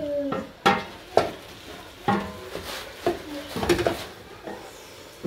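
A wooden spoon stirring chopped molokhia leaves in a stainless steel pot, knocking against the pot's sides about half a dozen times.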